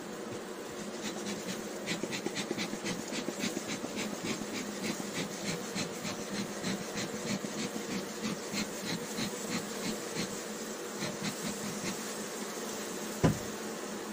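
Honeybees humming steadily over an open hive, with a run of quick soft hissing ticks, several a second, through most of it. One sharp knock near the end.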